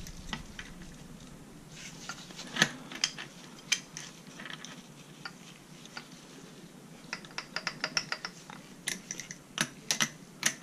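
Scattered light metallic clicks and taps of an adjustable wrench working a gear puller threaded into the clutch gear of a motorized bicycle engine, as the puller is tightened down. About seven seconds in comes a quick run of small clicks, and a few sharper clacks follow near the end.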